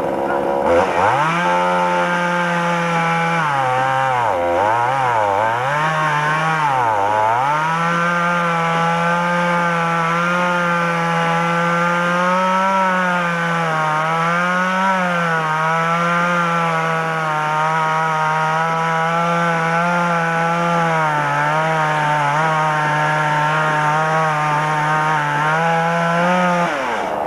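Two-stroke chainsaw revving up about a second in and running at high speed. Its pitch sags sharply three times in the first several seconds and wavers after, as under load, then drops away near the end.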